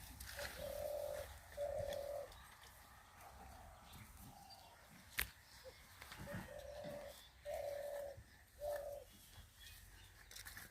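A dove cooing: a short series of steady, low coos, two near the start and three more about six seconds in. A single sharp click comes about five seconds in.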